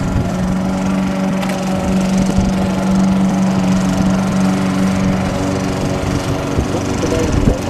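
Walk-behind gasoline rotary lawn mower running steadily at a constant engine speed while being pushed across grass, with a brief thump near the end.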